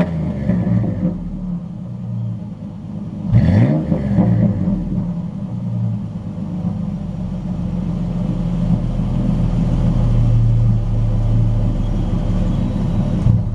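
2004 Ford Ranger Edge's V6 engine and exhaust, blipped once in a quick rev about three and a half seconds in, then running steadily with a deep rumble that grows louder toward the end.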